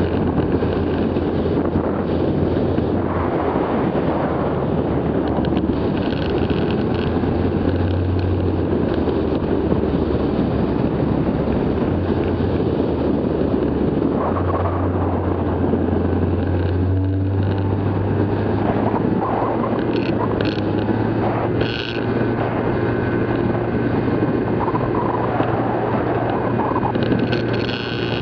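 Steady hum of a flex-wing trike's motor and rear pusher propeller in flight, under heavy wind rush over the microphone; the hum's pitch shifts slightly about halfway through.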